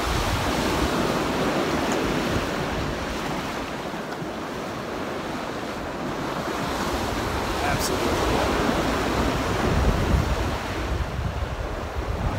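Ocean surf washing and breaking on a rocky shore, with wind buffeting the microphone; the wash swells louder around eight to ten seconds in.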